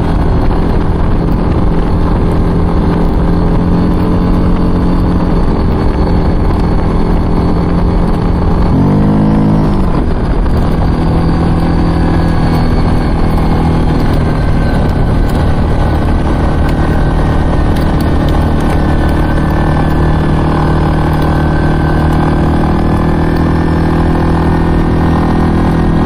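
ATV engine running through a Barker's Performance aftermarket exhaust while cruising at a steady pace. About nine seconds in, the engine note briefly rises and falls.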